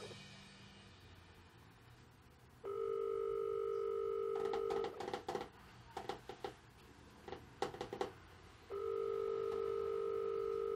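Ringback tone of a phone call heard through a mobile phone's earpiece: two steady rings about two seconds long, some four seconds apart, with nobody picking up. Faint clicks and handling noise between the rings.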